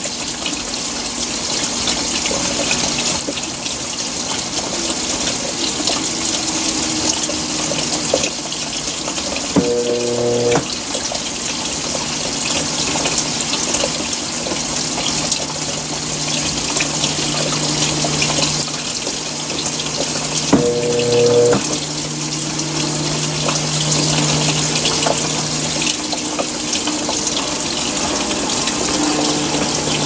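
Consul CWL16AB top-load washing machine filling: water sprays steadily from the inlet into the basket onto the clothes. A brief hum from the machine comes in three times, about every ten seconds.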